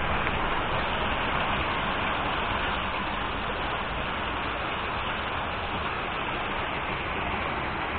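Steady rush of water spilling through a small dam, an even hiss with no change.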